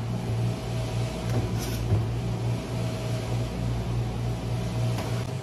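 Steady low mechanical hum, with a few faint light clicks over it.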